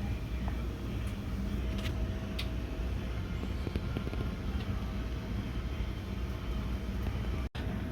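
3D printer running, a steady low mechanical hum with a few faint clicks; the sound cuts out for an instant near the end.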